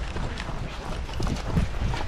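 Wind buffeting the microphone as a low rumble, with a few faint footsteps of a player moving over grass and dirt.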